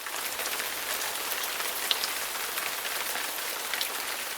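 Steady rain falling, a continuous hiss with scattered individual drops ticking through it.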